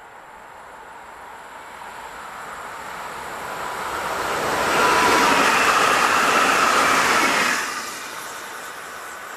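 Pesa Elf II electric multiple unit passing by on the track. Its running and wheel noise builds as it approaches, stays loudest for about three seconds as it goes past, then falls away sharply once the last car has gone by.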